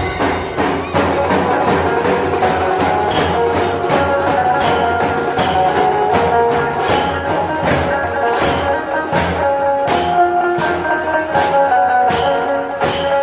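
Music: a melody carried over sharp, regular percussion strikes about every three quarters of a second, from a dhol-tasha drum ensemble playing a ringtone tune.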